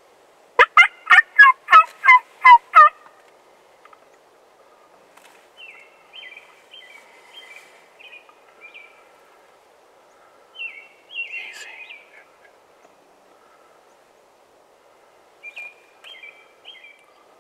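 Turkey calling: a loud run of about seven yelps in the first three seconds, then fainter yelping, a short burst of calling around eleven seconds in, and a few more yelps near the end.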